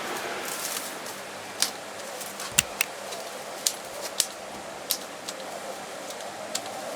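A series of short, sharp clicks or snips, about eight of them at irregular intervals, over a steady hiss.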